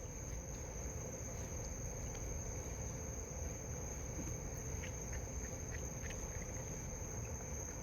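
Crickets chirring steadily on one high tone, with a few faint clicks partway through.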